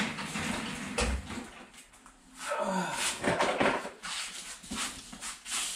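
Tools and jack gear being handled on a garage floor: a sharp click right at the start, a dull knock about a second in, then scattered clatter and scraping.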